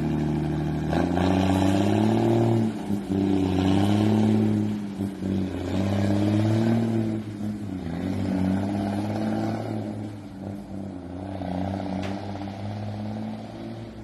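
Mercedes-Benz 1518 diesel engine in an MB 1313 truck pulling away under full throttle. The engine note climbs about a second in, then rises and drops about five times as it shifts up through the gears, getting fainter toward the end.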